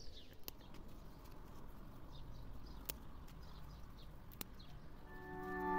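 Quiet outdoor background with faint bird chirps and a few soft clicks, then soft music fading in near the end.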